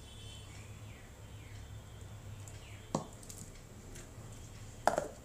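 Steel kitchen vessels knocking twice against a hard floor, about two seconds apart, the second louder, as soaked moong dal is scooped by hand from a steel bowl into a steel mixer jar. A low steady hum runs underneath.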